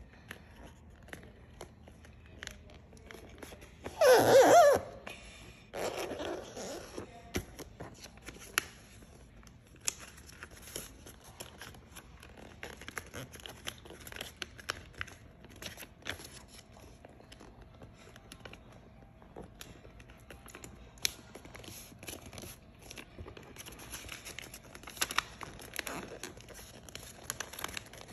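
A sheet of printer paper being folded and creased by hand on a desk pad: soft rustling with scattered light crinkles and taps. About four seconds in, a brief, loud, wavering pitched sound cuts across it. A faint steady hum comes in about halfway through.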